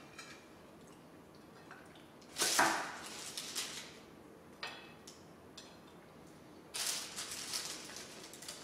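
Kitchen handling sounds: baking paper rustling and crinkling as pieces of baked muesli bar are broken off the slab, with a knife laid down on a wooden chopping board. They come in a few short bouts, the loudest about two and a half seconds in and a longer crinkly stretch near the end.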